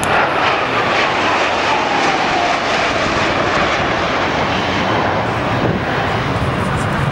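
Blue Angels F/A-18 Hornet jets flying past low in a four-ship formation: a loud, steady jet roar, with a high whine falling in pitch over the first couple of seconds as they pass.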